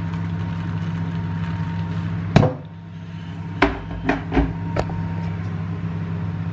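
Microwave oven humming steadily while it heats. About two and a half seconds in, a Morphy Richards kettle is set down with one sharp clunk, followed by a few lighter knocks of crockery.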